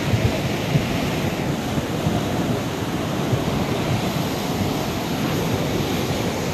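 A river in flash flood: fast, muddy floodwater rushing and churning past in a steady, loud torrent.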